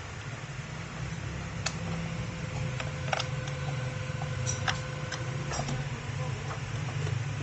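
Scattered sharp plastic clicks and taps, about half a dozen, from a battery hold-down clip and wiring being handled inside a kids' ride-on car's plastic body, over a steady low hum.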